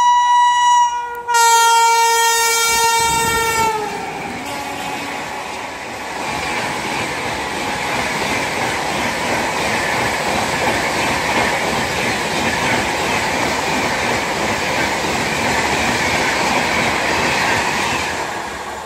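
Rajdhani Express passing at speed. The electric locomotive's horn sounds in a long blast, broken briefly about a second in, and its pitch drops at the end as the locomotive goes by. Then comes the steady rush and clickety-clack of the coaches' wheels on the rails, easing off near the end.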